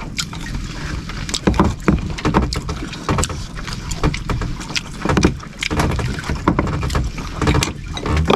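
Many short clicks and knocks from handling food, plates and plastic containers, over a steady low rumble of wind and water against a small wooden outrigger boat.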